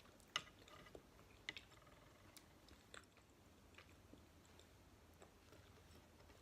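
Close-miked chewing of soft jelly and gummy candy: quiet wet mouth sounds with a few sharp clicks, the loudest about a third of a second in.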